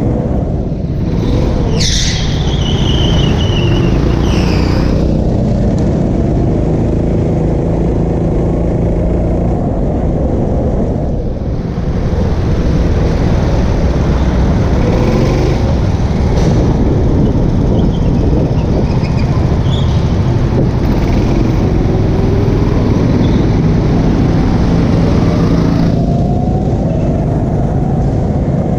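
Onboard sound of a go-kart racing on an indoor track: a loud, steady rumble of the kart running and air rushing past the camera. There is a brief high squeal, like the tyres in a turn, about two seconds in, and a rising motor whine near the end as the kart speeds up.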